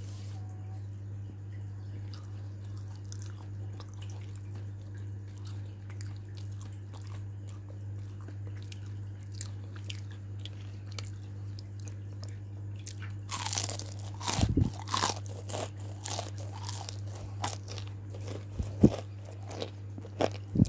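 Crunchy orange flakes being bitten and chewed close to the microphone: a run of loud, sharp crunches that starts about two-thirds of the way in, over a steady low hum.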